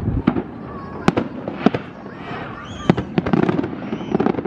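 Aerial fireworks shells bursting in a string of sharp bangs, the loudest a little over a second in and just before three seconds in. People talk nearby between the bangs.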